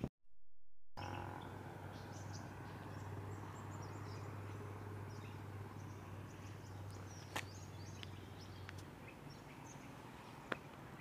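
Quiet outdoor background with scattered faint bird chirps, a steady low hum that cuts off about nine seconds in, and two sharp clicks.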